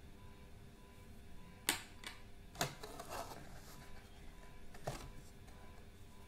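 Plastic packaging being handled: a few sharp clicks near two seconds in and again near five seconds, with a brief crinkle of clear plastic in between.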